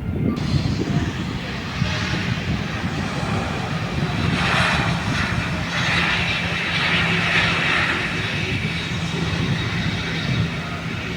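Jet airliner's engines running, with a steady low hum and a rushing noise that swells in the middle and eases off near the end.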